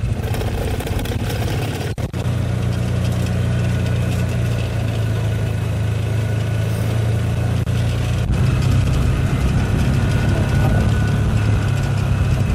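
Engine of a slowly moving vehicle running steadily with a low drone, a little louder about eight seconds in.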